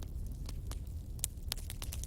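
Burning firewood crackling, with about half a dozen sharp pops, two of them louder in the second half, over a low, steady rumble.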